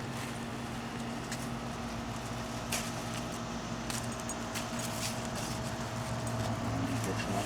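A steady low machine hum with a few faint clicks over it.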